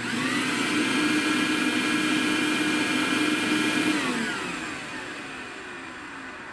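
Toro blower switched on with a sudden start, running steadily with a whine for about four seconds, then shut off and spinning down, its whine falling in pitch as it fades. It is blowing air through the siren's chopper tube and blower to check for trapped water.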